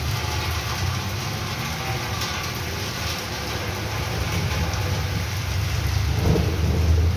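Steady rain falling on a wet street, with a low rumble underneath that grows louder near the end.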